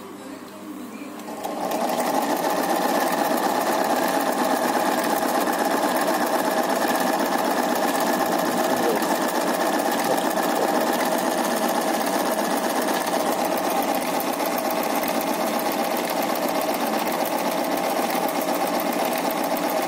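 Single-needle garment sewing machine starting about a second and a half in, then running steadily at speed with a fast, even rattle as it stitches decorative lines along fabric.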